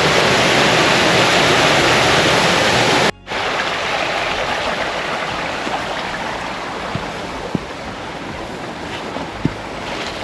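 Rushing water of a stream and small waterfall in a sandstone gorge, a steady loud rush. It cuts out sharply for a moment about three seconds in, then carries on a little quieter.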